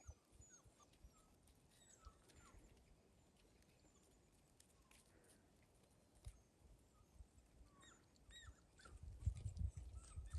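Faint, scattered high-pitched whimpers and squeaks of seven-week-old Labrador puppies, with soft low bumps near the end.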